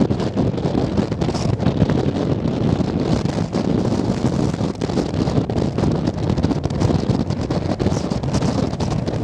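Strong wind buffeting the microphone: a loud, steady, fluttering rumble.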